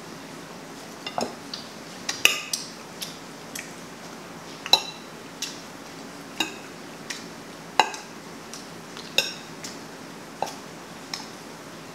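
Cutlery clinking against a dish in irregular taps, about one or two a second, many with a short ringing tone.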